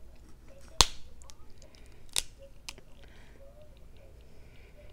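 Cooked crab leg shell cracked apart by hand: one sharp, loud snap about a second in, a second crack about a second and a half later, then a softer click of shell.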